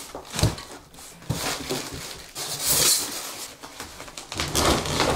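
A few short knocks and a rustle, with more scraping near the end: the sound of things being handled.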